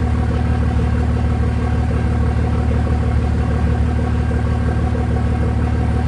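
Steady, loud low rumble with a constant engine-like hum, unchanging, with no distinct knocks or clicks.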